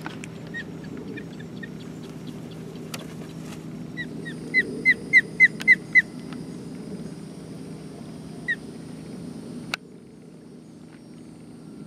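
Ospreys at their nest calling in short, high chirps: a few faint ones at first, then a quick run of about seven loud ones a few seconds in, and one more later. A steady low hum runs underneath and drops off near the end.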